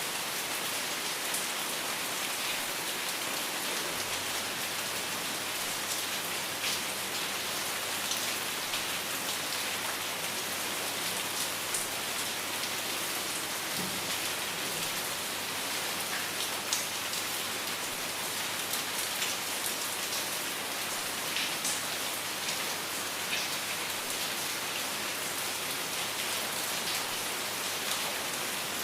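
Steady rain falling, a dense even hiss with many scattered individual drops pattering on surfaces.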